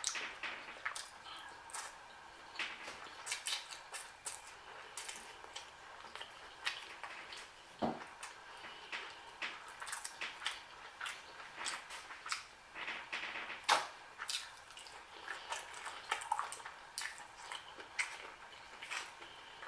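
Close-miked wet chewing and lip smacking while eating shrimp and ramen noodles: a steady run of irregular small moist clicks, with one louder smack about two-thirds of the way through.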